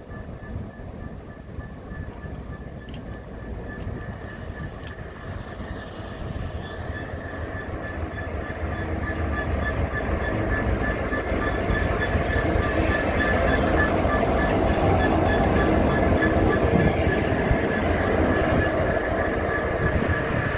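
Train approaching and running past, a steady rumble with a steady whine above it that grows louder about halfway through and stays loud.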